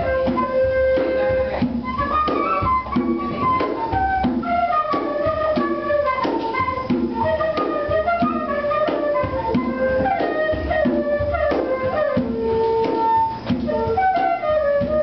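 Live flute playing a running melody over a keyboard accompaniment with a steady, even rhythm.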